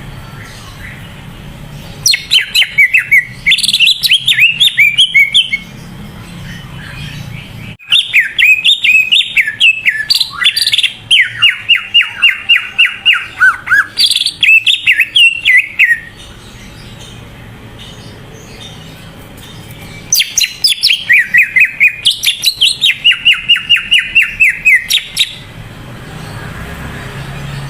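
Cucak ijo (green leafbird) singing in full song: three bouts of rapid, repeated chirping and sweeping whistled notes, the first about two seconds in, a long one from about eight to sixteen seconds, and another from about twenty seconds to twenty-five seconds, with pauses between them.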